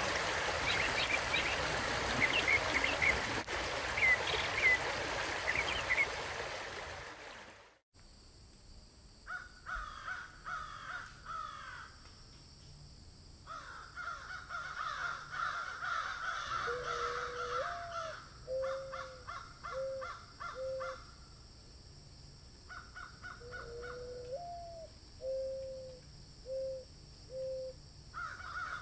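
A mountain stream running with small birds chirping over it, which cuts off abruptly. Birds then call against a quieter background, including two series of low calls, each a rising note followed by three or four short repeated notes.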